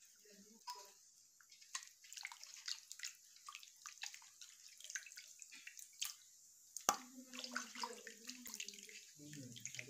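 Hands rinsing raw fish pieces in water in a metal wok: small splashes and drips, with two sharper knocks about six and seven seconds in.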